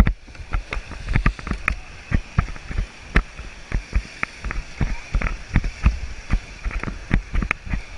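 Kayak paddling through a whitewater rapid: rushing water with many sharp, irregular splashes and knocks from paddle strokes and water hitting the boat.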